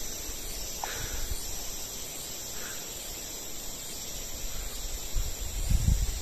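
Insects droning steadily in a high, continuous chorus, with a low rumble on the microphone near the end.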